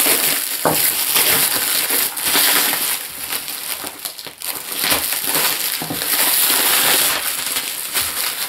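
Black plastic mailing wrap being torn open and pulled off a parcel by hand: a continuous run of crinkling and crackling plastic with many short sharp crackles.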